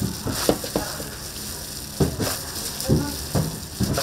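Tteokgalbi (Korean short-rib patties) sizzling as they cook, a steady frying hiss broken by about nine sharp clacks and knocks.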